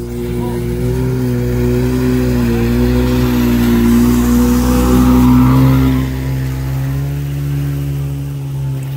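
Outboard motor running in gear in the water, its pitch wavering as the throttle is worked; it swells to its loudest about five seconds in, then eases back.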